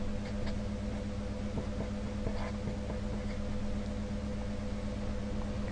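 Felt-tip marker writing on paper in a few faint short strokes, over a steady electrical hum and hiss.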